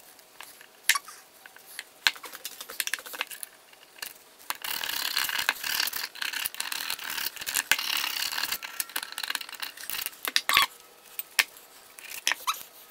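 A flat scraper blade scraping crusted gasket residue off a rusty carburetor half from an Allis Chalmers D17, a dense scratching that runs for about six seconds starting about four seconds in. Before and after it come light clicks and knocks as the carburetor parts are handled on the bench.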